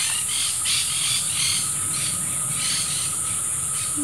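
Insects buzzing in a steady, high continuous drone, with short bursts of higher noise recurring two or three times a second over it.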